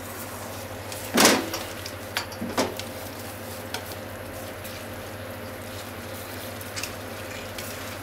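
Sauce-glazed thick deep-fried tofu (atsuage) and green onion sizzling steadily in a frying pan while being stirred with a wooden spatula. There is one sharp, loud scrape of the spatula on the pan about a second in, followed by a few lighter taps.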